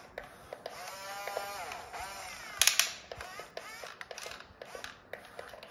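Electric motors of a toy RC excavator whining, rising and falling in pitch as the arm and bucket move, with light clicking throughout. A short, loud clatter comes about two and a half seconds in.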